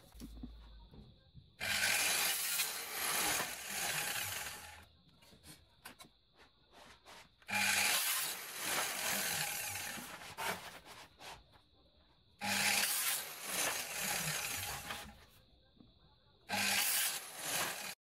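Mitre saw cutting plastic (PVC) ceiling molding: four separate cuts of about two to three seconds each, each starting abruptly.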